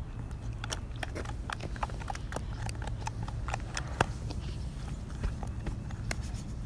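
Slime being squeezed and worked by hand, giving an irregular string of small clicks and pops, with one louder pop about four seconds in.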